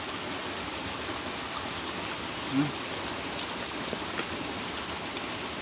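Steady, even background hiss with no clear source, and one brief low hum from a man's voice about two and a half seconds in.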